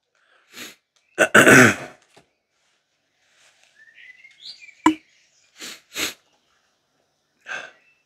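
A man ill with a fever sneezes once, loudly, about a second in. He then wipes his nose with a paper tissue: the tissue rustles and there are a few short sniffs.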